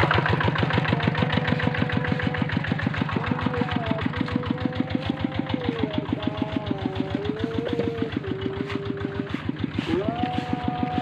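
Small engine running steadily with even, rapid firing pulses. A wavering tone that shifts in pitch like a melody rides over it and rises sharply near the end.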